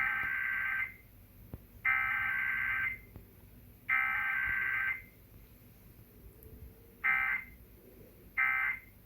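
Emergency Alert System SAME digital data bursts: three long, harsh buzzing header bursts about two seconds apart, then after a short pause two brief end-of-message bursts. There is no attention tone between them, the pattern typical of a required weekly test.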